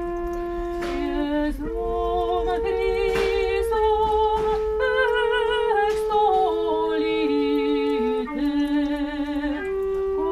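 Slow sung liturgical music: voices with vibrato over a small pipe organ, in long held chords that change every second or two.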